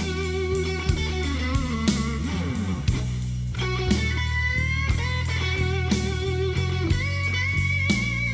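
Background music: guitar playing over a steady drum beat.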